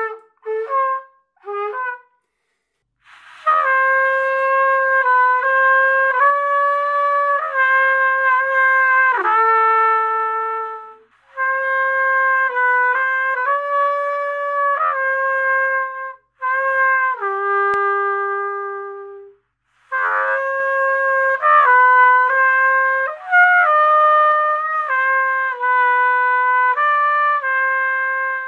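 Trumpet played by a beginner in range practice: a few short notes, then from about three seconds in long held notes in phrases with brief breaks, dropping to a lower note past the middle.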